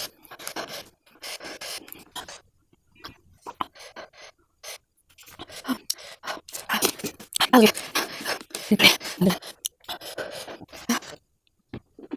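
A person panting and sucking in air in irregular bursts, with short pitched vocal sounds, the loudest between about six and nine seconds in, a reaction to the burn of extra-spicy Korean noodles.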